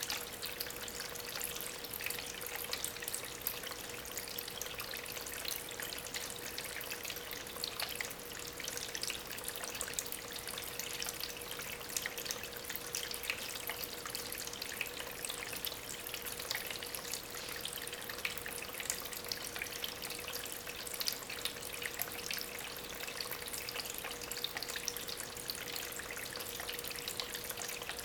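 Water from a small homemade waterfall trickling and splashing steadily over stones, circulated by a small aquarium pump. A faint steady hum sits underneath the splashing.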